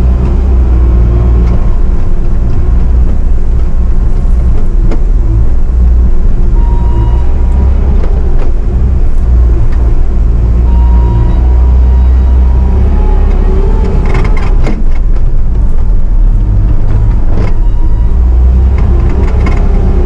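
Bobcat T650 compact track loader's diesel engine running steadily as the machine works a bucket of dirt. A few short rattles and knocks come about three-quarters of the way through.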